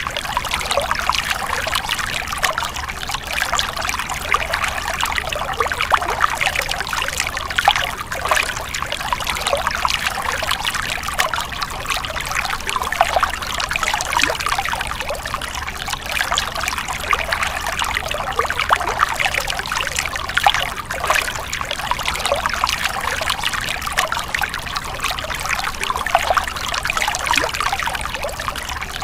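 Stream water splashing and trickling over rocks, steady and continuous.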